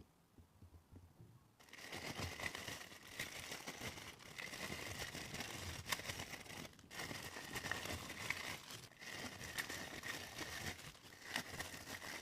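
Packaging crinkling and rustling as it is handled. It starts about two seconds in and goes on with a few short pauses.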